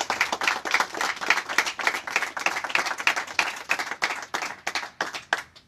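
A small seated group of people applauding: quick overlapping hand claps that thin out into a few separate claps and stop just before the end.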